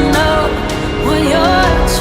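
Background music: a song with a sung melody over steady chords and a beat.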